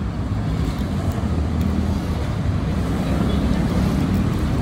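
Steady low engine rumble, even in level throughout.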